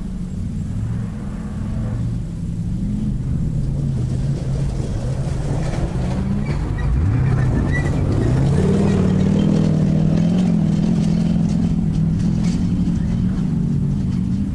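Off-road race car engine running hard under load. About seven seconds in its pitch dips, then climbs as it accelerates, and it holds high after that with a rough hiss over it.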